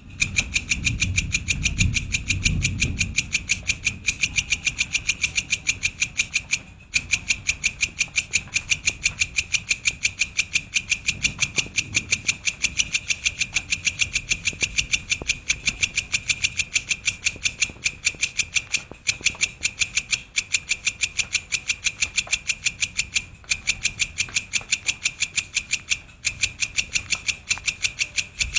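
Recorded songbird call repeated as a rapid, even series of sharp high notes, several a second, pausing briefly a few times; a masteran 'tembakan' phrase used to train pet songbirds. A low rumble sits under the first few seconds.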